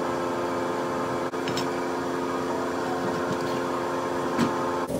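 Steady mechanical hum of a running kitchen appliance, one even droning tone with overtones, with a few light clinks from a spoon and a metal pan being handled.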